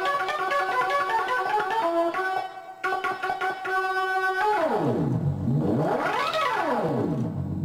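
MacBeth M5/M5N analog synthesizer playing a patch: a fast run of short repeated notes for the first four and a half seconds, then a tone that sweeps down in pitch, back up, and down again. Heard through a camcorder microphone.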